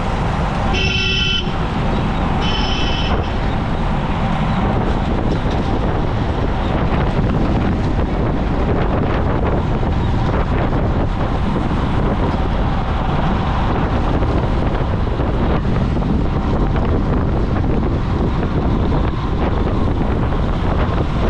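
Steady wind rush on a bike-mounted action camera's microphone, with road traffic, while riding in a cycling pack. A vehicle horn toots twice, briefly, about one and two and a half seconds in.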